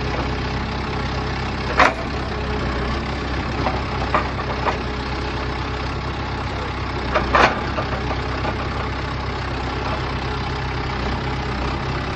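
An engine idling steadily, with a few sharp clanks: one about two seconds in, a cluster of lighter ones around four seconds, and a louder one past seven seconds.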